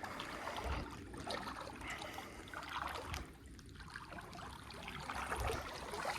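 Shallow creek water trickling and running, with a few soft low thumps.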